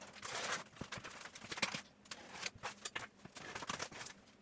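Cardboard shipping mailer being slit open with a box cutter: an irregular run of scrapes, small taps and cardboard rustling, with a longer rustle in the first second.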